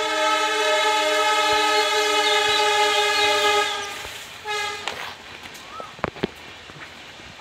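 A horn sounding loudly: one long steady blast of about four seconds, then a short toot soon after. Near the end come a couple of sharp knocks.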